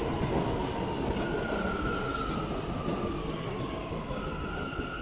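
New York City subway train running in the station below, a steady rumble with a high squealing whine that slowly falls in pitch, and a second steady whine joining near the end.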